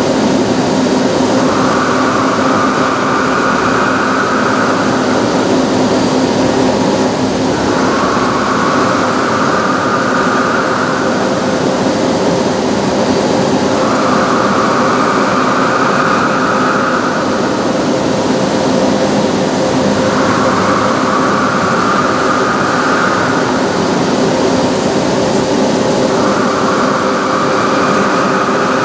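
Dörries SD 600/6500 CNC vertical turning lathe running: a loud, steady machine hum with a higher whine that comes in and fades away about every six seconds, five times over.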